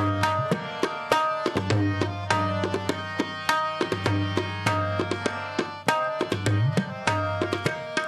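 Tabla playing a fast, dense rhythm in an instrumental passage of Sikh kirtan, with sharp treble-drum strokes and bass-drum strokes that now and then bend upward in pitch.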